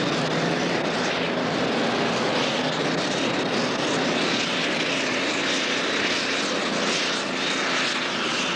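Super stock pulling tractor's engine running flat out under load as it drags the weight-transfer sled, loud and steady with a high whine over it.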